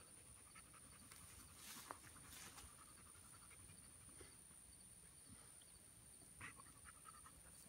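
Near silence: faint outdoor background with a steady thin high hiss and a few faint soft clicks.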